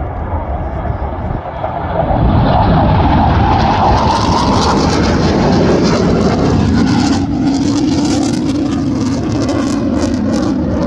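Panavia Tornado's twin RB199 turbofan jet engines running loud, swelling about two seconds in, with a whining tone that falls in pitch as the jet goes past.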